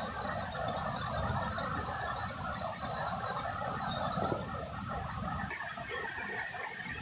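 Steady hiss of heavy rain with a fine, grainy patter, no single sound standing out.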